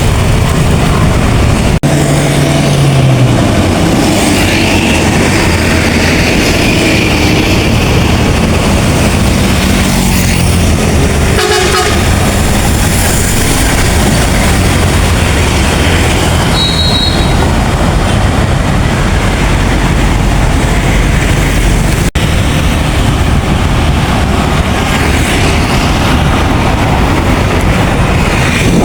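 Large intercity coach buses passing close by: loud, steady diesel engine and tyre rumble, with a brief horn toot about twelve seconds in. The sound breaks off abruptly twice as one passing bus gives way to the next.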